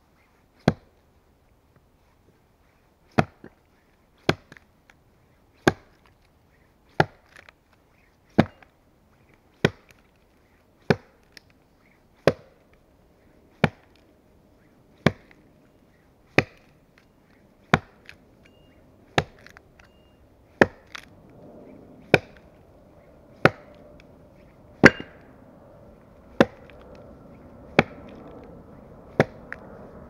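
An axe chopping into a log: sharp, evenly paced strokes about every second and a half, some twenty in all.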